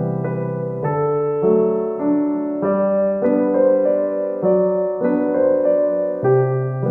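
Background music: a gentle piano-style keyboard piece playing sustained chords that change about every half second to second.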